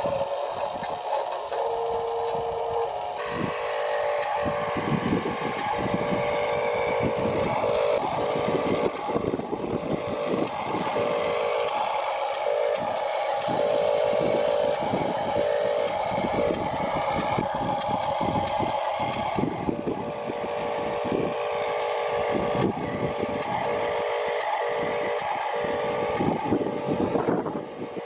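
Small electric motors and plastic gearboxes of radio-controlled toy trucks and an RC excavator whining steadily, with many irregular small clicks and knocks.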